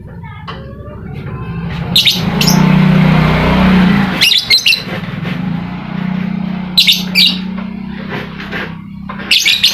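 Lovebird chirping in short, shrill bursts of rapid chatter, a few seconds apart, over a steady low hum.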